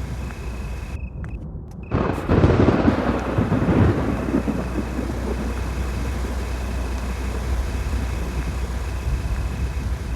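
A loud clap of thunder about two seconds in, crackling and then rumbling away over a few seconds, over a steady low storm rumble.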